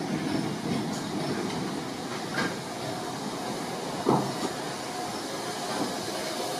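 Steam locomotive moving slowly tender-first: a steady rumble of wheels and hiss of steam, with a light click about two and a half seconds in and a single sharp clank about four seconds in.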